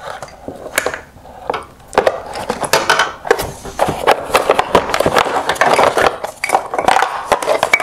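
Wire harness and rubber grommet being worked through a Nissan Rogue LED headlight's hard plastic housing by hand: a steady run of scraping and rustling with many small clicks of plastic and wires.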